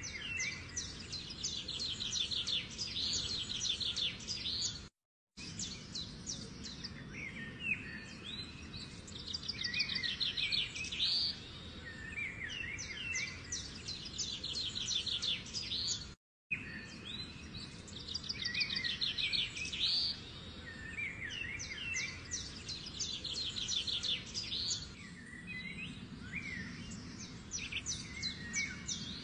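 Songbirds chirping: rapid trills and short rising and falling whistles in phrases that recur every several seconds, over a faint low hum. The sound cuts out completely for a moment twice.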